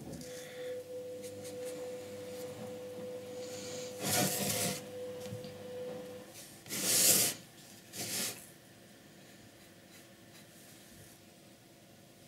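A wooden box scraping and sliding across a tabletop as it is turned by hand: three short rubbing scrapes, the second the loudest. A faint steady tone runs under the first half and stops about halfway through.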